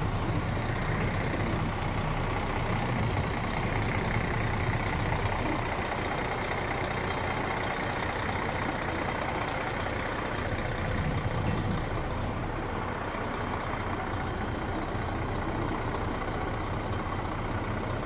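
Semi truck's diesel engine running steadily, a low, even drone throughout.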